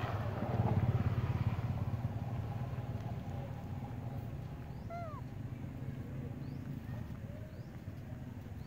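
A steady low rumble, with a few faint, short falling squeaks about five seconds in and weak wavering calls after them, from young macaques.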